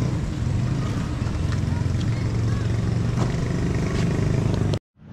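Street traffic: a steady rumble of vehicle engines with a hazy noise above it and a few faint clicks. Near the end the sound cuts out abruptly, then a duller traffic sound fades back in.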